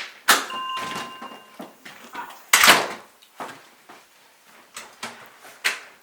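A run of knocks and clatter, like doors or cupboards being handled. The sharpest hit comes about a third of a second in, with a short thin tone just after it, and a longer, louder burst about two and a half seconds in.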